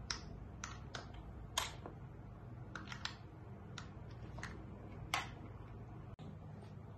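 Irregular light clicks and taps, about ten, with two louder ones about a second and a half in and about five seconds in: a kitten pawing at a plastic toy mouse on a tile floor, its claws and the toy knocking against the tiles.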